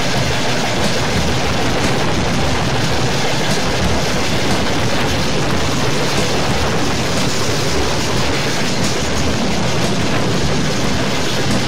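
Tank-car freight train rolling at speed, heard from on board the train: a loud, steady din of steel wheels on the rails and the wagons rattling.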